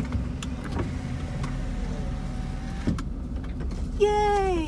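Low, steady engine drone heard from inside a car on a ferry's car deck, with a few light clicks. About four seconds in comes a short, loud tone that bends down in pitch.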